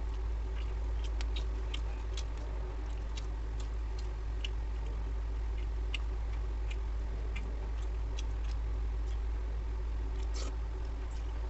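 Eating by hand from steel dishes: scattered soft, irregular clicks and smacks of chewing and fingers working the food, over a steady low hum.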